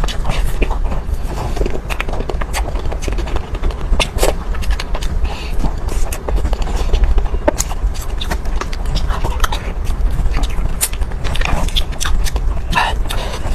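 Close-miked eating sounds: chewing with many short, sticky mouth clicks and crunches, irregularly spaced, over a steady low rumble.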